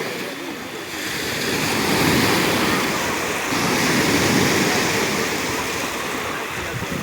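Rough sea surf, waves breaking and washing in as a steady rush that swells about a second in and stays strong through the middle.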